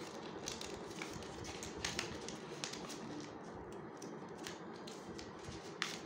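Faint rustling and crinkling of origami paper being folded and pressed by hand, with a few sharp ticks of paper against paper, the clearest near the end, over steady background hiss.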